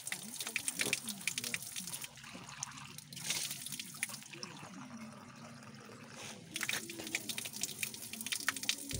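Spring water pouring in a thin stream from a metal pipe spout and splashing onto wet stone. Partway through, a cup is held under the stream and fills.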